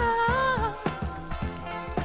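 Instrumental stretch of a late-1970s Italian pop-rock recording: a held lead melody line over bass and drums with a steady beat.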